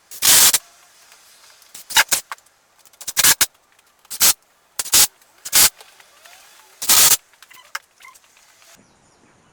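Wooden battens being fixed down over roofing felt: about eight loud, sharp knocks at irregular intervals.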